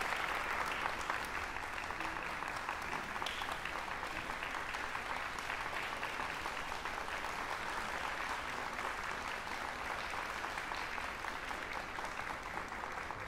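Audience applauding: many hands clapping, steady and even.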